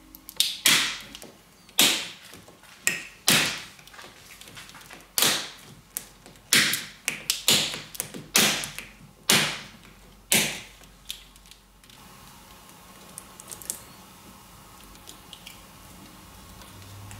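Tesla Model X's plastic headliner trim track and the dashcam wires in it being handled: a string of sharp plastic clicks and snaps at uneven spacing for about ten seconds, then only a few faint ticks.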